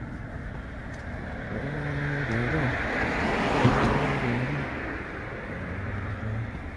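A road vehicle passing close by, its engine hum and tyre noise swelling to a peak about three and a half seconds in, then fading away.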